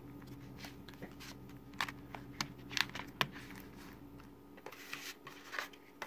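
Plastic Blu-ray cases being handled and moved on a wooden table: a string of sharp clicks and taps, loudest in the middle. A low steady hum underneath stops about four seconds in.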